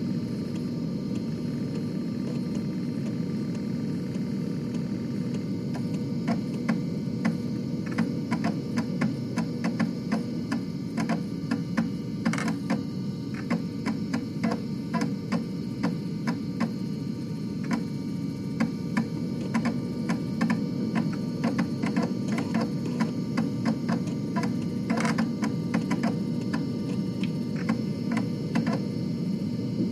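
Floppy disk drive running: a steady motor hum with irregular clicking from the read head stepping, sometimes in quick runs and sometimes as single ticks.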